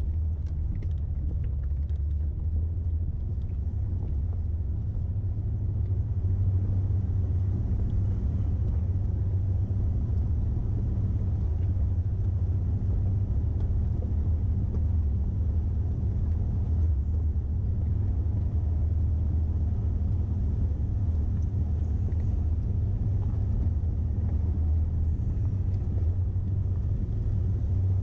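A vehicle's engine running steadily while driving, a low rumble that gets a little louder about six seconds in.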